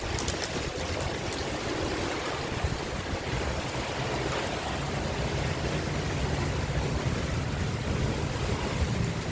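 Strong wind with heavy rain: a steady rushing noise, with the wind rumbling on the microphone.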